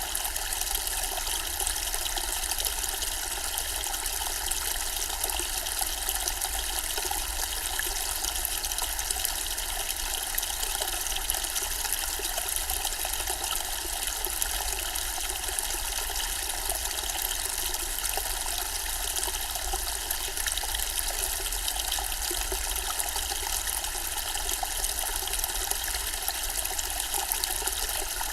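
Zen-style water fountain, water trickling and splashing steadily without a break.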